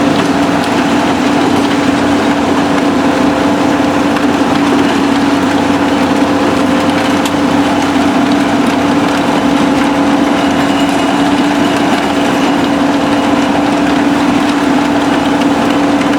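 Mobile impact crusher crushing concrete rubble, over the steady drone of heavy diesel machinery running without pause.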